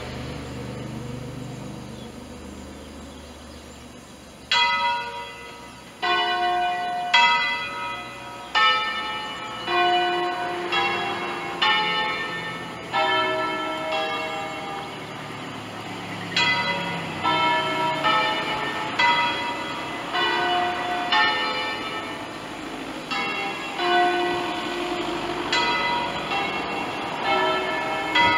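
Five bronze church bells cast by Pruneri in 1887, hung on Ambrosian-style wheels and rung by hand. After about four seconds of fading ring, strikes of different pitches follow one another about once a second, each ringing on into the next.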